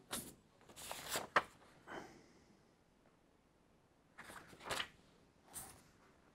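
Crinkling and rustling of a small packet and a paper sheet being handled: several short rustles in the first two seconds, then two more near the end.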